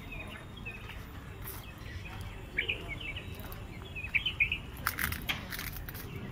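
Small birds chirping in short, scattered calls, with a few sharp crackles about five seconds in.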